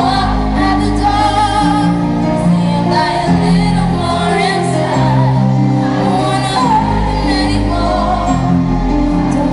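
Live pop ballad: a female lead singer's voice over sustained keyboard and band chords, heard from the audience in a large concert hall.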